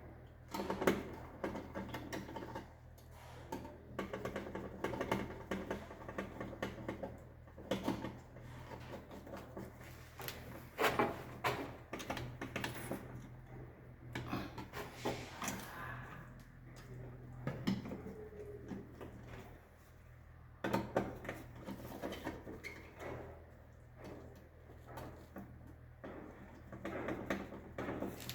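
Irregular clicks, taps and scrapes of hand work: cable conductors being worked into the terminals of an Eaton MEM Shield distribution board and the terminal screws tightened.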